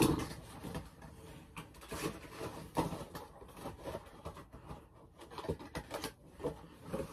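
Light knocks, clicks and rustling of things being handled close to the microphone, irregular throughout, with a louder muffled burst right at the start.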